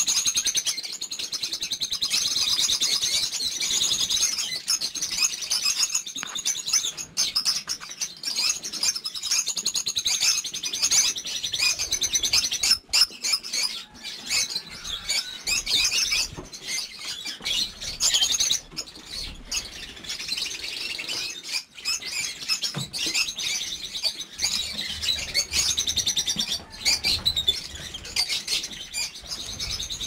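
A flock of lovebirds chattering in an aviary, a dense, continuous mass of high-pitched chirps and squawks.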